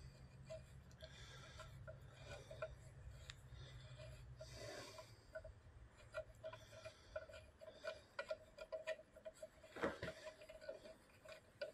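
Faint, irregular light metallic clicks and ticks as small fittings are worked loose by hand from a mower axle's brake housing, with one sharper knock about ten seconds in. A faint low hum fades out partway through.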